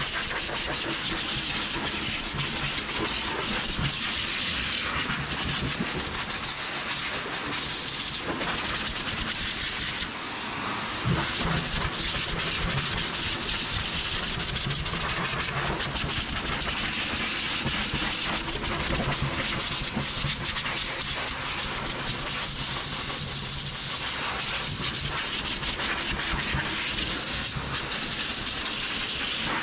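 High-velocity pet dryer blowing air through its hose nozzle onto a freshly bathed dog's coat, a steady loud rushing hiss. It dips briefly about a third of the way in.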